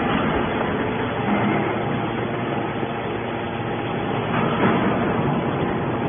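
TCM hydraulic scrap metal baler running steadily, its hydraulic power unit working as the ram pushes a compressed bale of metal turnings out of the chamber.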